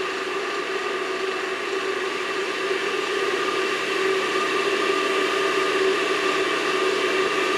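Gas boiler's combustion fan running steadily: a constant whir with a steady hum in it.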